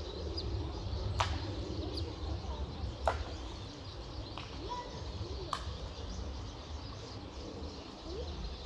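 Outdoor ambience: faint bird chirps over a steady low rumble, broken by several sharp clicks, the loudest about one, three and five and a half seconds in.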